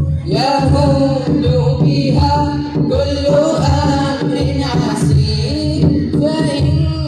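Boys singing an Islamic devotional song through microphones, a lead voice carrying a bending, ornamented melody, with a frame drum keeping a steady beat underneath.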